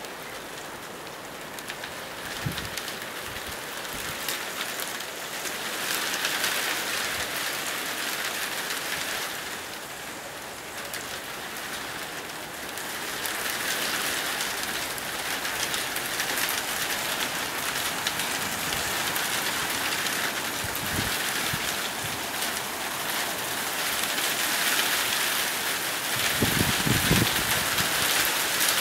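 Heavy rain pattering down during a storm, swelling and easing in waves, with a few low thumps near the end.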